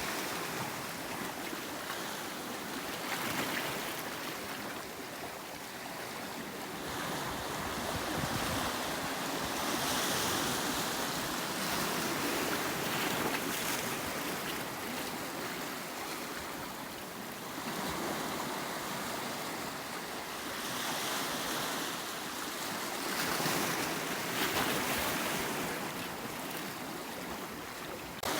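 Ocean waves breaking and washing against a rocky shore, the surf swelling and easing every few seconds, with some wind.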